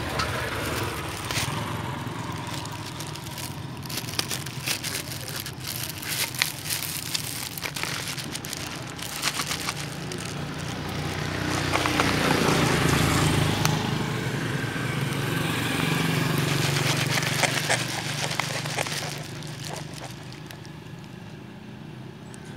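Precast concrete fence posts clunking and scraping as they are handled and loaded onto a truck bed: a scatter of short knocks. A passing road vehicle's engine swells and fades across the middle.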